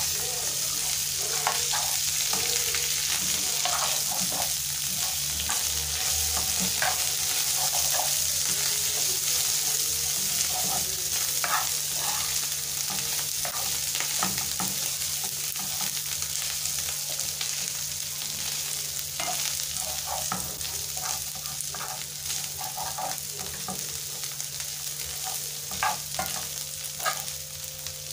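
Small dried omena fish and onions sizzling in plenty of hot oil in a frying pan, with a metal spoon clicking and scraping against the pan as they are stirred. The sizzle comes up loud at the start and eases a little over the second half.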